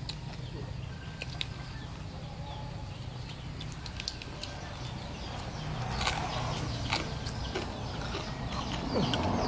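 People eating raw fish and leafy herbs by hand: chewing and lip smacks with scattered sharp mouth clicks. A hen clucks near the end.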